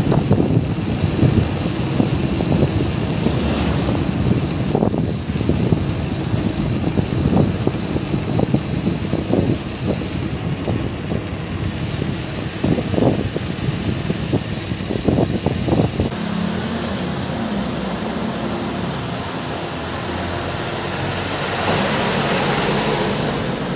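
Wind buffeting the microphone on a road ride, gusty low rumbles over road and traffic noise; about two-thirds of the way through the gusts ease and a steadier engine-like hum takes over.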